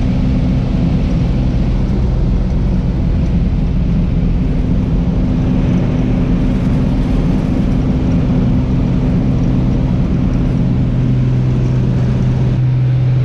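Small single-engine propeller plane's piston engine running steadily, heard from inside the cabin while the plane moves on the grass, with a constant drone.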